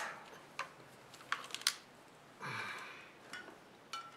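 Light clicks and taps of a soldering gun and its tip being handled against a plastic fan shroud: a quick cluster of sharp clicks in the first two seconds and a couple more near the end, with a short hiss about halfway.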